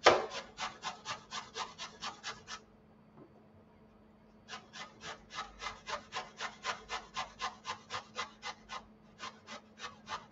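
Zucchini being grated by hand on a grater: quick, even rasping strokes about four a second. The strokes stop for about two seconds near the start, then carry on.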